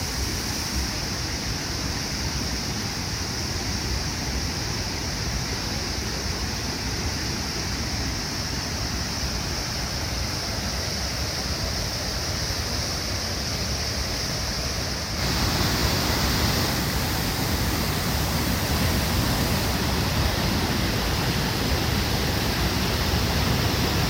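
Large waterfall's steady rush of water, stepping up in loudness about fifteen seconds in.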